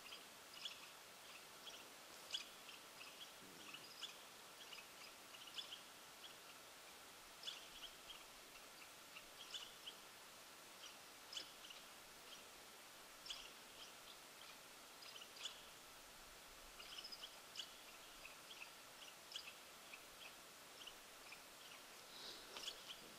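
Faint, short high chirps from small birds, scattered irregularly about once a second and sometimes in pairs, over a quiet hiss of open country.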